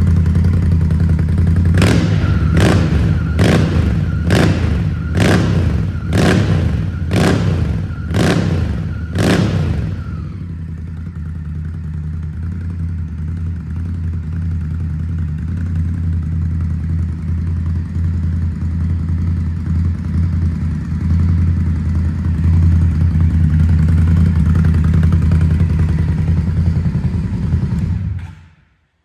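Indian Scout Bobber's V-twin engine running through shotgun exhausts, given about eight sharp throttle blips roughly a second apart, then left to idle steadily before it is switched off and cuts out near the end.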